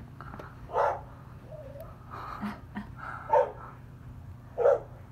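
A dog barking up into a tree at a magpie: three loud single barks about a second or more apart, with fainter sounds between them.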